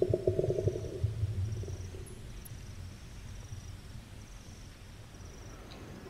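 Koala bellowing: a rapid pulsed rasping for about the first second, then a low rumble that fades out after about two seconds. The rest is a quiet background with faint, evenly repeating high chirps.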